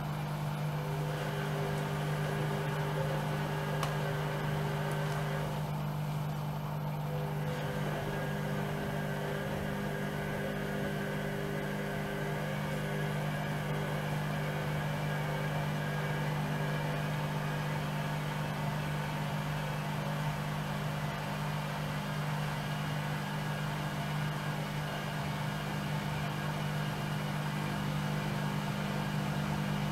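Bauknecht Dynamic-Sense WAE8575 washing machine's motor turning the drum at a steady speed, a steady hum. A rising whine starts near the end as the drum speeds up.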